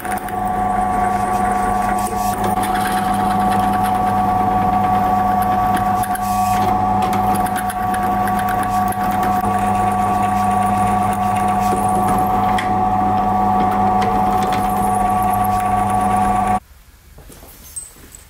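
Drill press running steadily, its twist bit boring into the end of a steel railroad spike: a constant motor hum and whine with the scraping of the cut. It cuts off suddenly near the end, leaving a few faint clicks.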